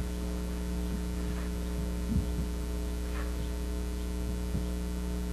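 Steady electrical mains hum: a low drone with a ladder of higher overtones, unchanging throughout. A few faint brief sounds come through, the most noticeable about two seconds in.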